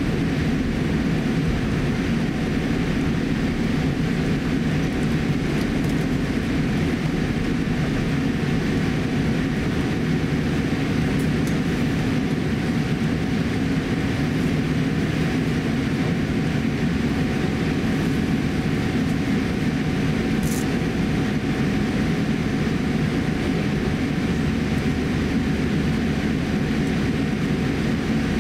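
Steady cabin noise inside a Boeing 787-8 airliner taxiing after landing: a low, even rumble from the engines at taxi power and the rolling aircraft, with a thin steady hum running through it.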